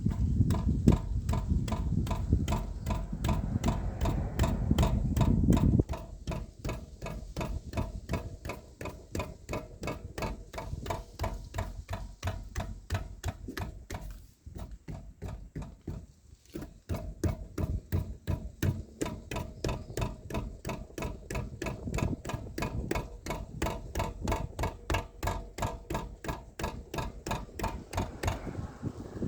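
Knocking rattle from the rear suspension of a Toyota Voxy Hybrid: an even, fast series of knocks, the symptom being shown for diagnosis. A heavier low rumble runs under the knocks for the first several seconds, then drops away.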